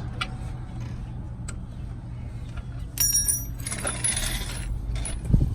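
Metal tools and parts clinking and scraping during drum brake work, with one bright ringing metallic clink about three seconds in and a short thump near the end, over a steady low hum.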